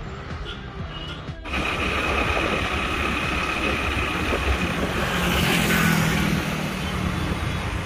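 Quiet background music, then about a second and a half in a sudden cut to road traffic heard from a moving vehicle on a highway, with engines running. A vehicle passes close, loudest about five to six seconds in.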